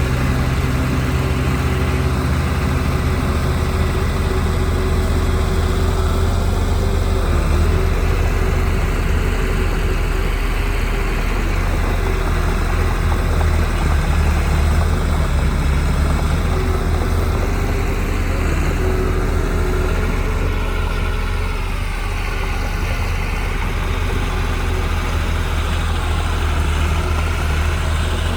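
Diesel engine of heavy earthmoving machinery running steadily with a low rumble, easing slightly and shifting in pitch about three-quarters of the way through.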